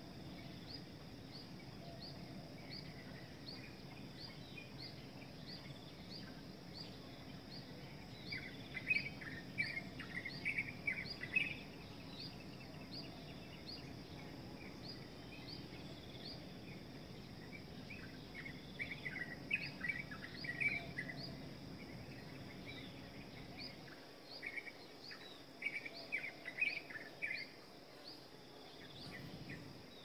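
Tropical outdoor ambience: insects chirring steadily, with a high chirp repeating about twice a second, and three bursts of chattering bird calls. A low background rumble drops away near the end.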